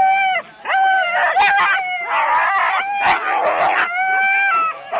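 Siberian Husky sled dogs in harness yelping and howling, with long high-pitched cries one after another and overlapping. Around the middle there is a dense stretch where many dogs cry at once. This is the excited noise of teams held back at the start line, eager to run.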